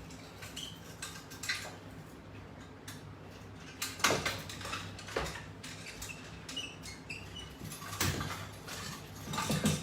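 Light metallic clinks and clicks of exercise attachment hardware (clips and chain of a resistance band attachment system), a handful of them scattered over several seconds, over a faint steady hum.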